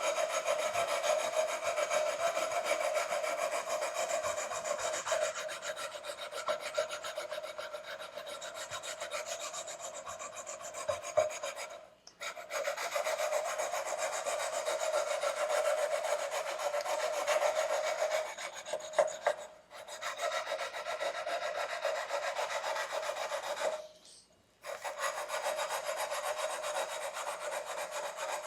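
A short fret-levelling bar rubbed back and forth along the frets of a 2009 Squier Strat SE in quick, continuous strokes, grinding down uneven frets before re-crowning. The scraping pauses briefly three times.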